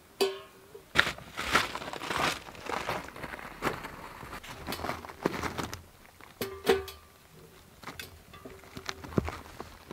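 Soft plucked-string music, like acoustic guitar, playing as separate irregular notes.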